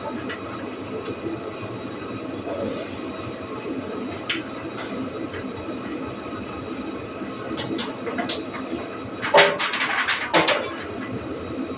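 Sawmill and planer machinery running steadily, with a burst of clattering knocks about nine seconds in that lasts a second or so.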